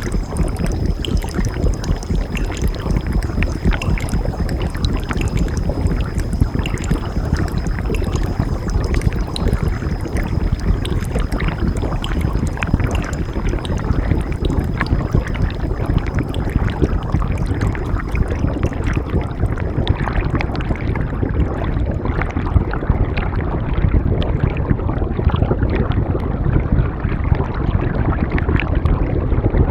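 Running water, a stream rushing and splashing close by, steady and full with many small spatters. A thin high steady tone sits over it and fades out about two-thirds of the way through.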